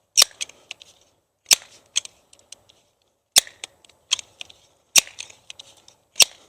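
Multi-pump pellet pistol being pumped: a sharp clack at each stroke of the pump lever, followed by lighter clicks. There are about five strokes, roughly a second apart.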